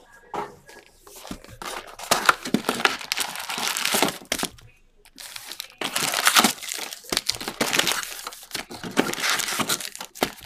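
Plastic and foil wrapping crinkling in several irregular spells as a trading card box is opened and its sealed packs are handled.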